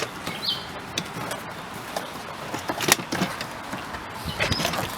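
Scattered light clicks and knocks of plastic door trim being handled while the interior door handle is worked into its channel, with a short high squeak about half a second in.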